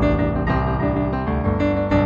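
Improvised solo piano music, many notes played in quick succession over a sustained bass.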